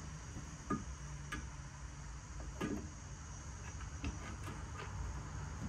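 A few separate light metallic clicks and taps as engine parts are handled against a small single-cylinder engine's aluminium block and cylinder.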